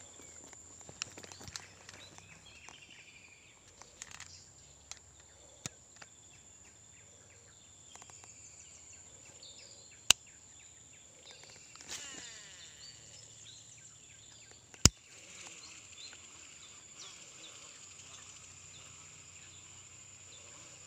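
Outdoor swamp ambience: a steady, high-pitched insect drone with scattered bird chirps. It is broken by a few sharp clicks, two of them loud, about ten and fifteen seconds in.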